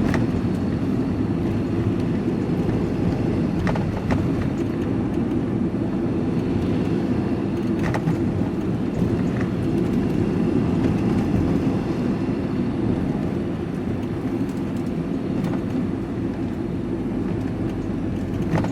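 Van driving along at steady speed, heard from inside the cab: a constant low drone of engine and tyre noise, with a couple of faint clicks about four and eight seconds in.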